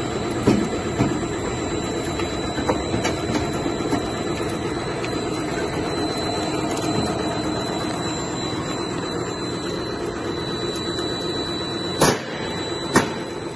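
Lab twin-screw food extruder running: a steady mechanical drone with a thin, constant high whine over it. A few light clicks, then two louder sharp knocks about a second apart near the end.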